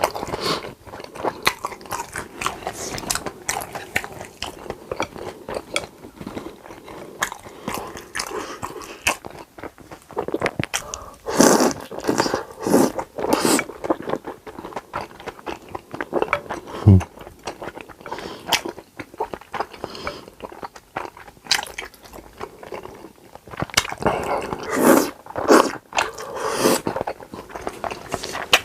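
Close-miked eating sounds from a person biting and chewing food, with many small wet clicks and several louder crunchy bites in two clusters, one before the middle and one near the end.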